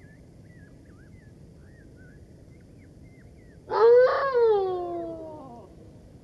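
Golden jackal giving a single loud howl about three and a half seconds in: it rises briefly, then slides down in pitch and trails off over about two seconds.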